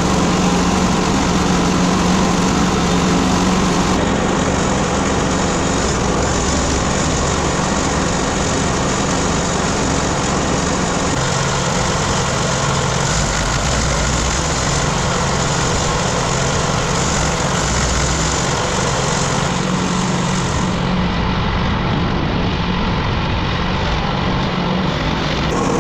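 Small wood chipper's petrol engine running steadily, with a constant low hum.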